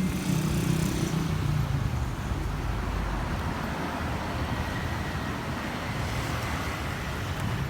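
Street traffic: steady road noise, with a vehicle engine running close by for the first couple of seconds.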